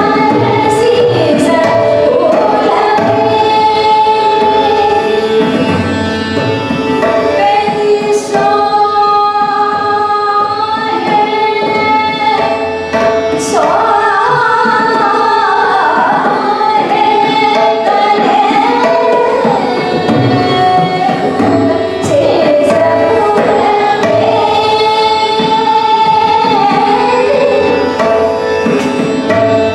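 A woman singing a Hindustani classical bandish, with melodic lines that glide and bend, over tabla accompaniment and a steady drone.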